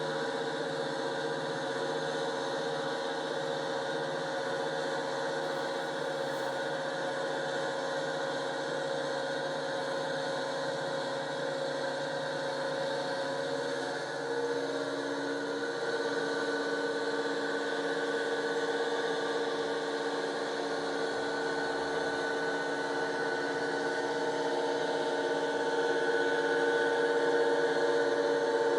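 Accurascale Class 55 Deltic model locomotive running on the layout: a steady drone made of several held tones, which shift in pitch about halfway through and get a little louder near the end.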